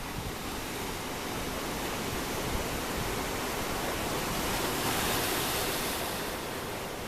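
A steady, even rushing noise with no pitch, like surf or falling water. It slowly swells to its loudest about five seconds in, then fades.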